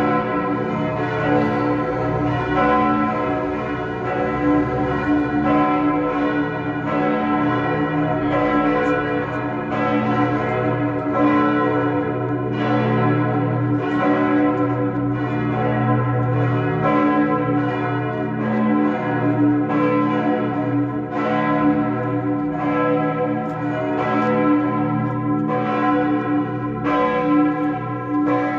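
Lund Cathedral's church bells ringing together in a continuous peal, calling to High Mass: overlapping strikes about once a second over a steady, sustained hum.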